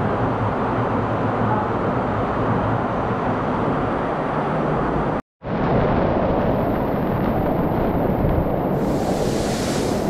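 Waterfall cascading onto rock and into a pool: a steady, loud rush of falling water. The sound cuts out for a moment about five seconds in, then the rush resumes.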